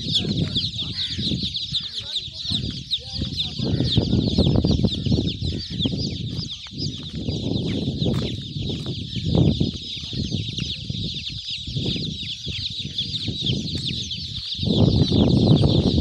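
Hundreds of newly hatched chicks peeping all at once: a dense, continuous mass of high, quickly falling chirps. Under it, bursts of low rumble come and go, loudest near the end.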